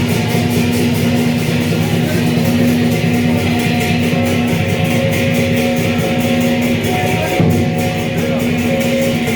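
Music led by strummed guitar, with held chords over a quick, even rhythm.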